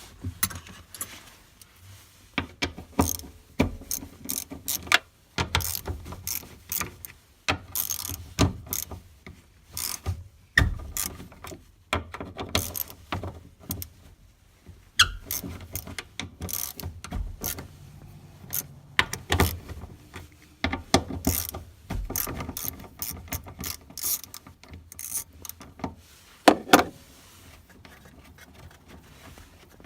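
Hand socket ratchet clicking in short, irregular runs as 10 mm bolts are backed out, with a couple of sharper knocks near the end.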